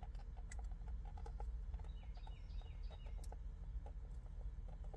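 A bird chirping, a quick run of four short notes about two seconds in, over a steady low rumble and faint scattered ticks.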